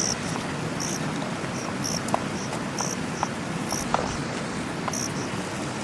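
Short, high insect chirps, like a cricket's, repeating unevenly about once or twice a second over the steady rush of a mountain river, with a few faint ticks.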